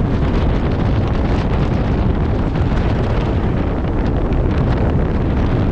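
Storm-force wind buffeting the microphone: a loud, steady rumble of wind noise, strongest in the low end, from a gale estimated at about Beaufort force 9.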